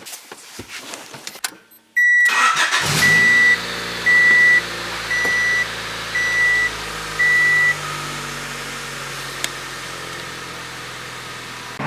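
A Honda Del Sol's four-cylinder engine is started and settles into a steady idle, while the car's warning chime beeps about six times, roughly once a second. A few light clicks of handling come before it.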